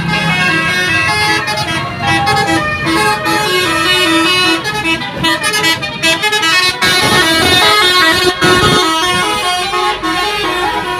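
Indonesian bus 'basuri' musical air horns playing fast melodies of short stepped notes, several horns sounding at once in a horn battle between buses.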